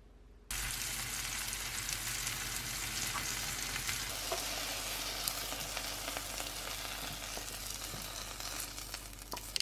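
Food sizzling and crackling in a hot pan, a steady dense spitting that starts abruptly about half a second in.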